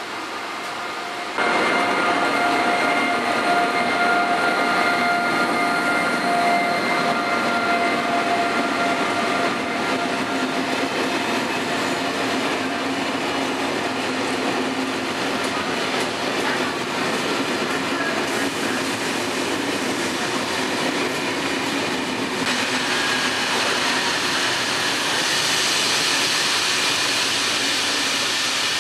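SNCF electric locomotive and its Corail passenger coaches passing close by at speed. The sound jumps up suddenly about a second and a half in, with a steady whine that fades over the next several seconds, then gives way to the steady rush and rumble of the coaches' wheels on the rails, growing brighter and hissier near the end.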